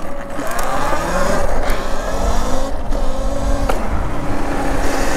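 Electric motor of a Talaria electric dirt bike whining and rising in pitch as the bike accelerates, over wind rumble on the microphone. A sharp click sounds a little before the end.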